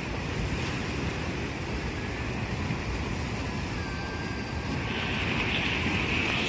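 Rough, cyclone-driven sea surf breaking against a rocky seawall: a steady rushing wash of waves, growing a little louder near the end.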